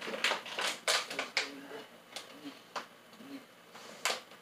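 Scattered light clicks and taps of kitchen utensils and cookware being handled, about half a dozen in a few seconds, the sharpest one near the end.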